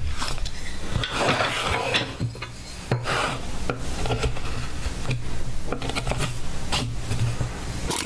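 Hand carving chisel cutting into a wooden board: a run of short, irregular scraping cuts with small clicks as the blade shaves out the wood, easing briefly a little over two seconds in.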